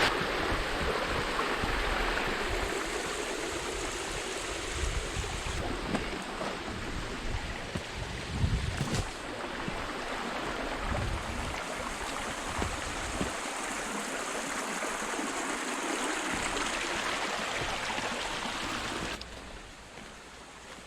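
Small stream waterfall rushing steadily, dropping noticeably quieter near the end.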